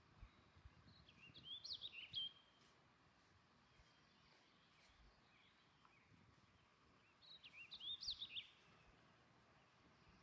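A small bird singing two short, quick warbled phrases about six seconds apart, over a faint outdoor background hiss.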